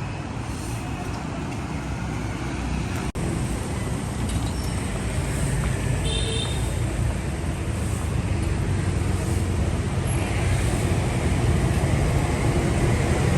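Steady street traffic noise, passing vehicles mixing into a continuous rumble, briefly cutting out about three seconds in.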